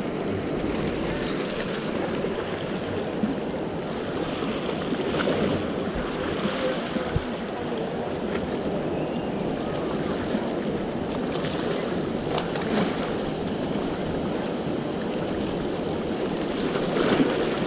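Sea surf washing steadily against the shore, a continuous rush of water noise.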